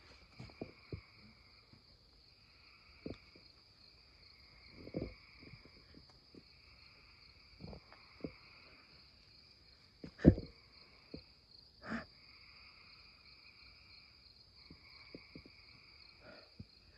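Night chorus: insects keep up a steady high-pitched drone while frogs call over and over, each call about a second long. Faint footsteps and rustles sound on the dirt trail, with a sharp thump about ten seconds in, the loudest sound, and another about two seconds later.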